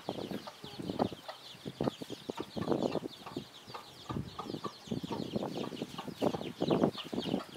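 Chickens clucking in irregular short bursts, over a steady, busy high chirping of small birds.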